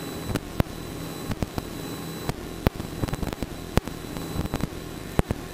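Steady drone of a Piper Cherokee's piston engine and propeller heard inside the cabin in flight, with a low hum under it. About a dozen sharp clicks crackle irregularly through the drone.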